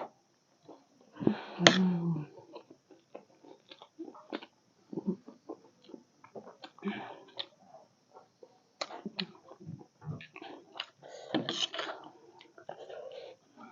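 A person chewing chatpate, a spicy puffed-rice snack, close to the microphone: irregular crunching and wet mouth clicks, with a few louder breathy sounds between mouthfuls.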